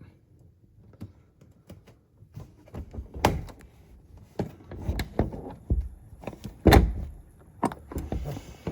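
A series of irregular knocks and thumps, the loudest about two-thirds of the way in.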